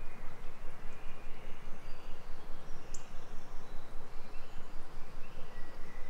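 Forest ambience: a steady background hum of insects with scattered short, high bird chirps, one sharper chirp about halfway through.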